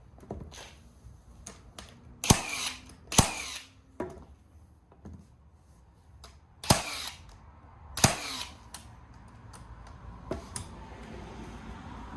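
Nail gun firing four loud, sharp shots in two pairs a few seconds apart, each with a short ringing tail, with lighter knocks of handling between them.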